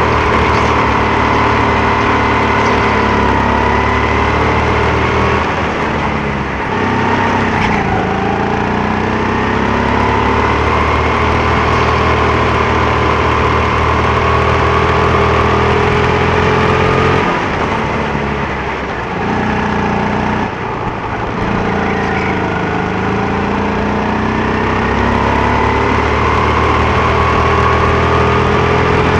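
Go-kart engine running hard, its pitch climbing slowly as it gathers speed and then falling away, several times over, as the kart slows and pulls away again.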